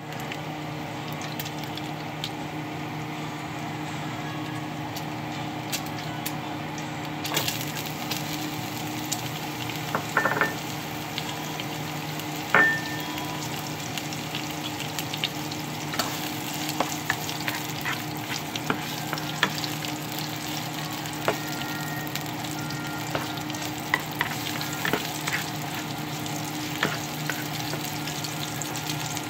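Chopped bacon and onion frying in oil in a skillet, a steady sizzle, with scattered clicks of stirring. Two louder knocks with a short ring come around ten and twelve seconds in.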